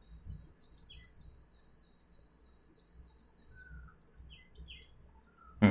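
Birds chirping faintly in the background: a run of short high chirps, about three a second, for the first three seconds, then scattered single calls. A short sharp sound comes right at the end.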